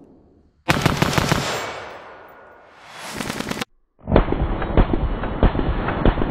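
Suppressed FN SCAR 16S in 5.56 mm firing quick semi-automatic strings of shots: a fast burst about a second in that rings away, then after a short break a duller, muffled run of shots about two-thirds of a second apart.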